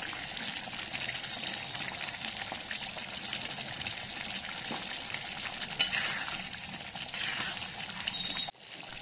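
Prawn and pointed-gourd curry simmering in a steel pan on a gas stove, with a steady sizzling, bubbling hiss. A ladle stirs through the gravy in the later part, and the sound cuts off suddenly near the end.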